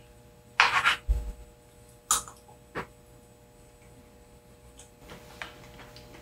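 A spoon scraping and tapping in a small bowl of rice: a few short scrapes, the first about half a second in and others near two and three seconds in, then faint clicks.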